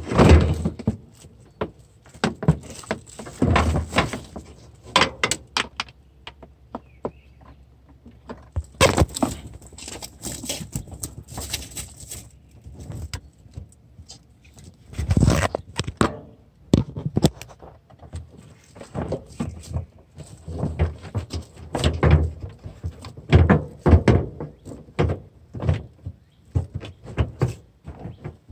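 Irregular clicks, knocks and rustling from hands working on parts and wiring at the front of a car, mixed with the handling noise of a handheld phone camera.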